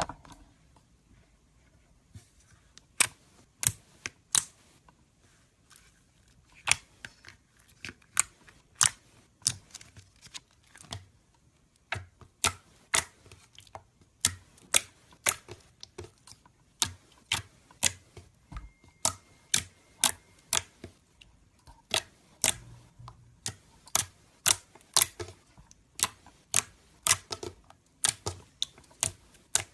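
Slime being pressed and worked by hand, making sharp popping clicks as trapped air bursts. The clicks come irregularly, singly or in quick pairs and triples, a couple of times a second.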